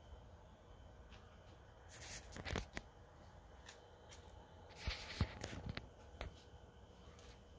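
Faint rustling with sharp clicks in two short clusters, about two seconds in and again about five seconds in, over a low steady background rumble.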